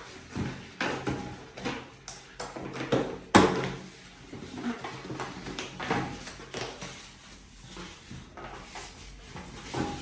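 Inflated latex 260 modelling balloons being handled and tied together: irregular rubbing and knocks, with one sharper knock about three and a half seconds in.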